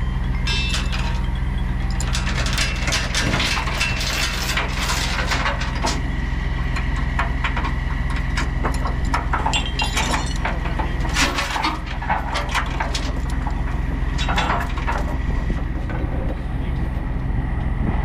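Steel tie-down chain clanking and rattling as it is thrown across and dragged over an excavator bucket, with many sharp irregular clinks. A steady low engine hum runs underneath.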